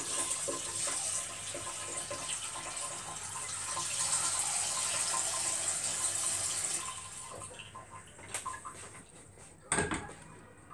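Tap water running into a stainless steel pot, fading out about seven seconds in; near the end the pot is set down on the gas hob's grate with one knock.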